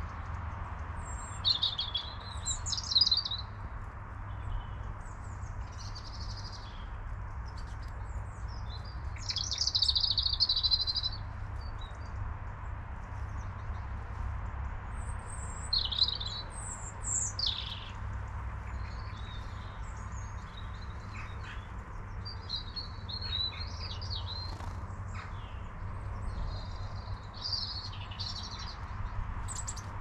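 Small songbirds chirping and calling in short, scattered bursts, one longer run of calls about a third of the way in, over a steady low rumble.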